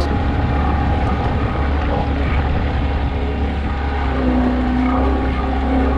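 Steady low engine drone from a passing motor vehicle on or over the water, with a faint steady tone coming in about four seconds in.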